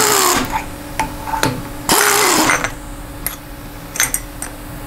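Pneumatic air tool spinning the workholding fasteners on a steel modular fixture plate in two short bursts of about half a second, one right at the start and one about two seconds in, each with a whine that rises and then sags. Between the bursts come sharp metallic clicks and knocks.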